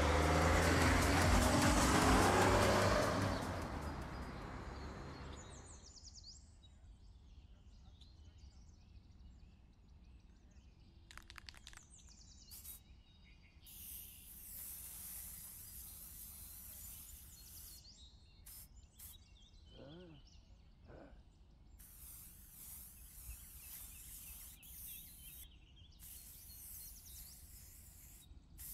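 A van drives past, loud at first and fading away over the first five seconds. Then an aerosol spray can hisses in a string of short and longer bursts as letters are sprayed onto a board, with two brief chirps about twenty seconds in.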